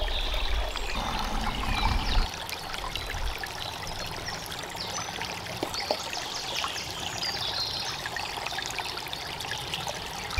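Small stream trickling steadily, with faint birdsong above it and a low rumble in the first two seconds.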